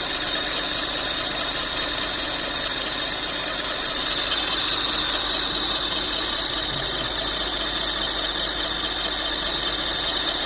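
Lexus IS 250's 2.5-litre V6 idling with a loud, steady high-pitched squeal from its accessory drive belt, easing slightly about halfway through. The belt is dried out and cracked.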